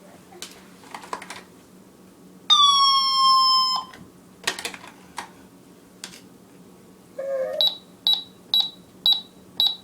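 Cash register being worked by hand: a few button clicks, then one loud buzzing tone held for just over a second. More clicks follow, and near the end come five short high beeps in quick succession.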